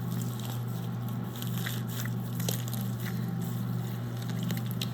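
Homemade slime mixed with foam soap being squished and stretched by hand, giving small scattered wet clicks and crackles. A steady low hum runs underneath.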